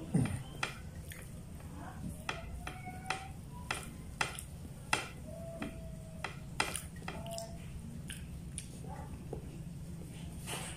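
Close mouth sounds of a person eating by hand: wet chewing, lip smacks and scattered small clicks, over a steady low background hum.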